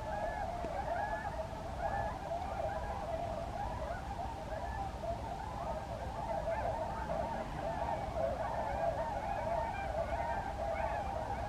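A flock of swans calling together, many short calls overlapping without a break.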